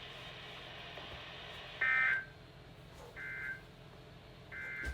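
Three short NOAA Weather Radio SAME digital data bursts, buzzy warbling tones about a second and a half apart: the end-of-message code that closes the warning. Under them is a faint steady hum and hiss from the radio.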